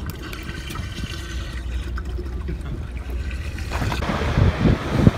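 Sportfishing boat underway: a steady low engine drone with water rushing past the hull. About four seconds in, a louder, gusting rush of wind buffeting the microphone comes in over it.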